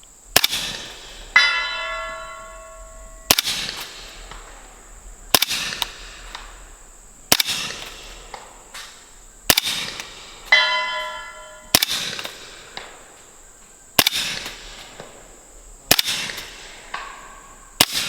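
Suppressed 300 Blackout rifle firing subsonic rounds, nine shots about two seconds apart. Three times, about a second after a shot, a steel target about 170 yards out rings when the bullet hits it.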